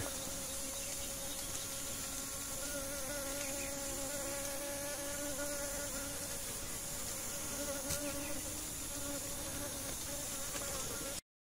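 Steady, slightly wavering buzz of hornet wings, with a faint high insect chorus behind it. It cuts off suddenly near the end.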